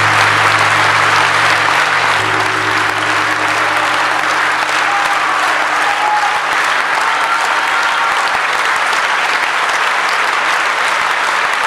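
Audience applauding steadily. A low held tone sounds underneath at first and fades out about three seconds in.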